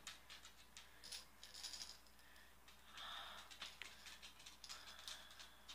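Faint rattling and rustling of baby toys being handled and lifted out of an Easter basket, in scattered short clicks and shakes.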